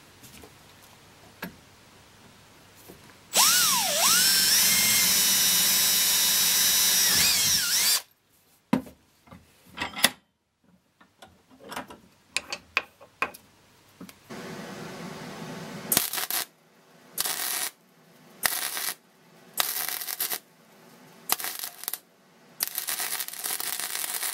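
A cordless drill boring through a hardwood lever arm for about four seconds, its whine dipping and then climbing, followed by a few handling clicks. In the second half, arc welding in a run of short bursts, about seven, each around a second long.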